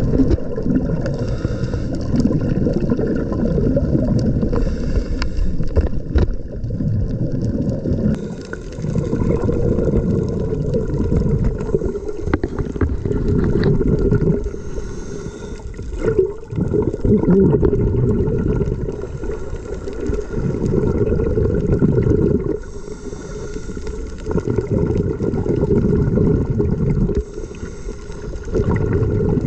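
Muffled underwater water noise on an underwater camera: a low, churning rumble that swells and drops every few seconds, with brief gurgling hiss on top.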